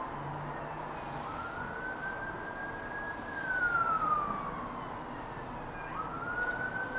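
An emergency vehicle siren wailing faintly, its pitch rising and falling slowly, about one full cycle every four to five seconds.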